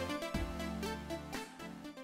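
Electronic background music with a bass line and a beat, fading out near the end.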